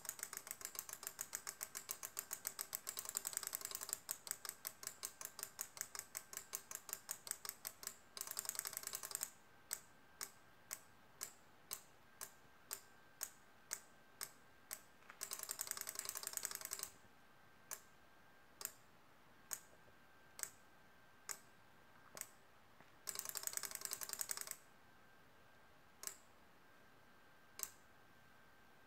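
Electromechanical relays on an 8-channel relay module clicking on and off in sequence as the CNC controller switches its outputs. The clicking keeps changing speed as the controller's inputs are triggered: a quick rattle of clicks at first, then slower single clicks about once a second, broken by three short bursts of very rapid clicking.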